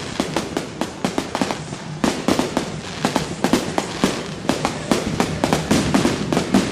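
Fireworks going off in rapid succession: a dense, irregular run of sharp bangs and cracks, several a second, without a pause.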